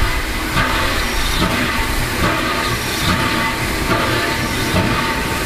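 Victorian Railways R class steam locomotive R761, hissing steam from around its cylinders while it turns slowly on a turntable: a continuous steady hiss over a low rumble.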